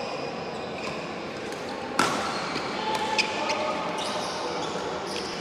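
Badminton rackets striking a shuttlecock during a rally in a large hall: one sharp, loud crack of a hit about two seconds in, followed by a few lighter, quick ticks.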